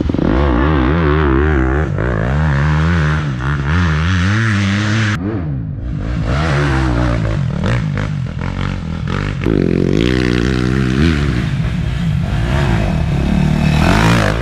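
Enduro dirt bike engines revving hard, rising and falling in pitch as the riders work the throttle through tight trail. The sound breaks off and changes abruptly about five seconds in and again around nine and a half seconds, as one bike gives way to another.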